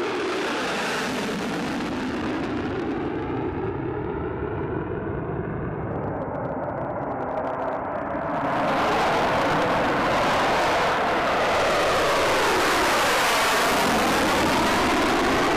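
Jet noise from an F-35 fighter's single Pratt & Whitney F135 turbofan on afterburner as it flies past, a loud rushing sound with a slow sweeping, phasing quality. About eight seconds in it jumps louder and brighter as a second pass takes over.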